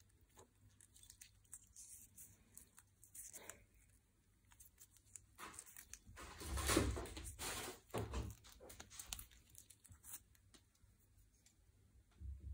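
Faint handling noises of a small carabiner and its attached tag: scattered light clicks, with a louder stretch of rustling and scraping about six to eight seconds in.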